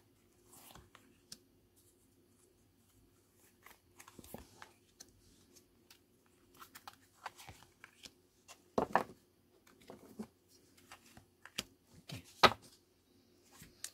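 A deck of cards being shuffled by hand, with soft sliding and flicking of cards, then cards being dealt onto a table with a few sharper snaps, the loudest about nine and twelve and a half seconds in.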